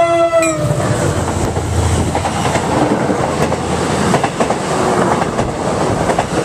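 An MBTA commuter train's horn, led by an EMD F40PH-2C locomotive, cuts off about half a second in, its pitch dropping as the locomotive passes close by. The locomotive and bilevel coaches then run past at speed with steady wheel-and-rail rumble and rapid clicking over the rail joints.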